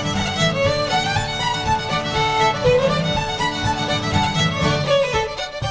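Instrumental background music: a melody with gliding notes over a steady accompaniment.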